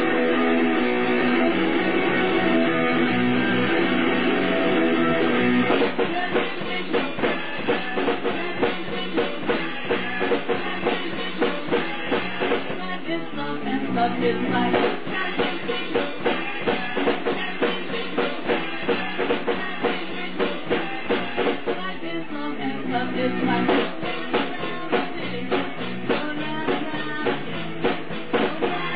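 A rock band playing live, with bass guitars, electric guitar and a drum kit. It opens with held, ringing chords; about six seconds in, the drums come in with a steady beat that continues under the guitars.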